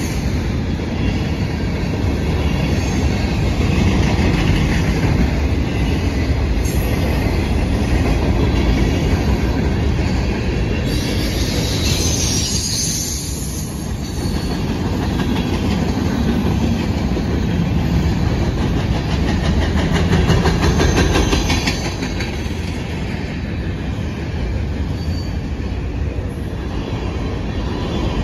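Freight cars of a Norfolk Southern train rolling steadily past: tank cars, boxcars and covered hoppers, a continuous rumble of steel wheels on rail. A sharper high-pitched stretch of wheel noise comes about twelve seconds in.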